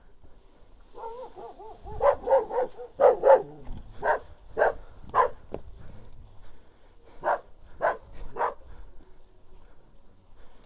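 A dog barking about a dozen times in uneven clusters, starting with a short wavering whine.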